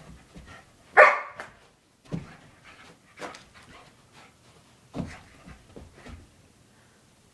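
A dog barks once, loudly, about a second in, with several softer thumps from its paws landing as it pounces at the laser dot.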